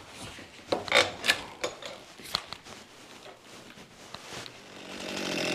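Scattered clicks, taps and knocks of hands handling a chainsaw and small items on a wooden workbench. Near the end a running chainsaw fades in and grows steadily louder.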